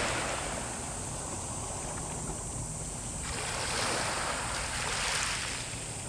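Sea surf: waves breaking and washing in, with a fresh surge about three seconds in.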